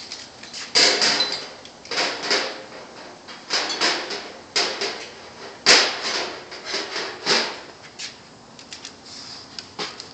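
A series of clacks and clunks, about one every second, with the sharpest knock about six seconds in, like a latch or hardware mechanism being worked by hand.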